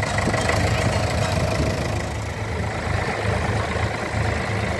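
Restored vintage tractor engine idling steadily.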